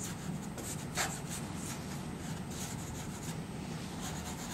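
Soft pastel stick scratching across paper in short back-and-forth strokes, about three a second.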